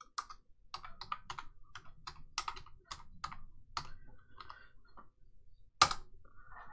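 Typing on a computer keyboard: a quick run of about a dozen keystrokes as a word is typed, then one louder keystroke near the end as Enter is pressed.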